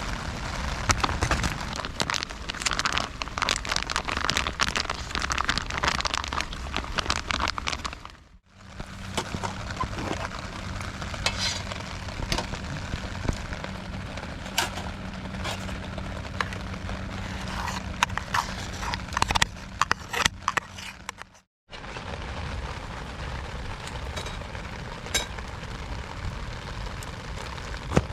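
Wood fire crackling in a small solo fire stand, a dense run of irregular pops and snaps. The sound cuts out abruptly twice, at about a third of the way in and again near three quarters.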